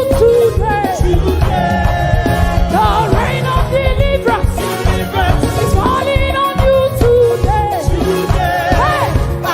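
Gospel music played live: singing voices over a band with a steady bass and drum beat.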